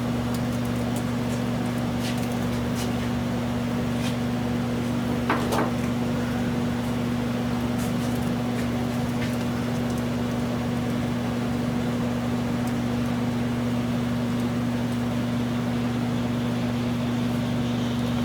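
A steady low electrical hum, with a few light clicks and a short scrape about five seconds in.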